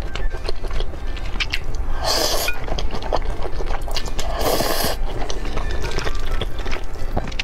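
Close-miked mouth sounds of eating spicy stir-fried noodles: wet chewing and mouth clicks throughout, with two short breathy slurps, about two seconds in and again about four and a half seconds in.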